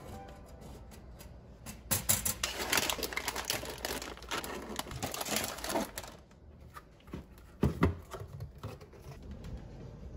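Crinkly plastic packs of seaweed snacks rustling and clicking as they are handled and laid in place on a tension rod in a cabinet. A cardboard box is then slid onto the shelf, with one solid thump near the end.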